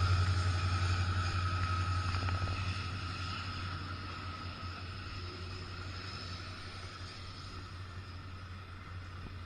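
Diesel train receding: a low rumble fades steadily away. A single high steady tone dies out over the first couple of seconds.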